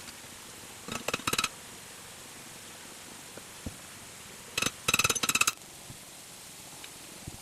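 Metal clinking and jangling in two short bursts, one about a second in and a longer one about halfway through, each made of several quick ringing strikes. A steady hiss lies underneath.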